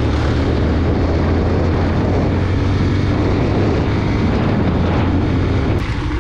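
Bajaj Pulsar 125's single-cylinder engine running as the motorcycle is ridden, with wind rushing over the microphone. Near the end there is a click and the noise drops.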